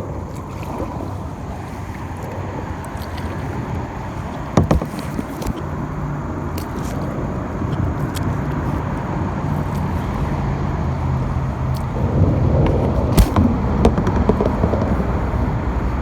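Steady rumble of road traffic from a nearby highway bridge, growing louder about twelve seconds in, with a few sharp knocks.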